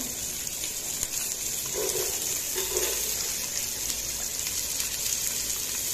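Chopped onions sizzling in hot oil with mustard seeds and curry leaves in an aluminium pot: a steady frying hiss.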